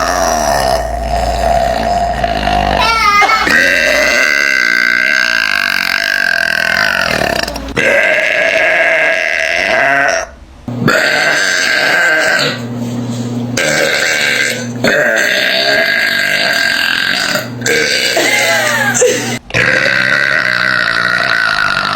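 A woman letting out a run of long, loud, drawn-out belches, each held for a few seconds, one after another with short breaks between them.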